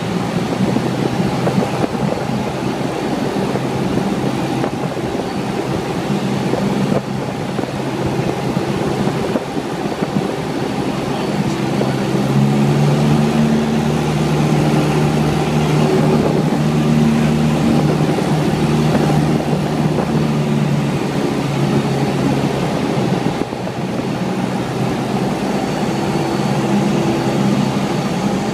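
Light single-engine airplane's piston engine and propeller droning steadily in the cockpit on approach to landing, the engine note a little stronger for several seconds midway.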